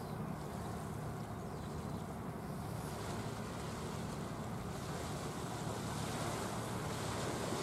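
Steady low rumble of a boat's engine under an even hiss of wind and water; the hiss grows a little stronger about five seconds in.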